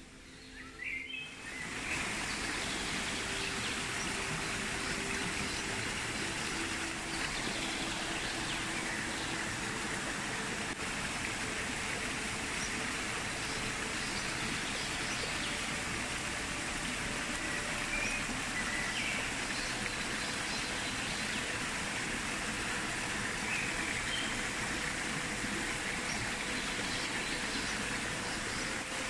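A shallow creek running over rocks, a steady rush of water that comes up about a second and a half in, with a few faint short bird chirps now and then.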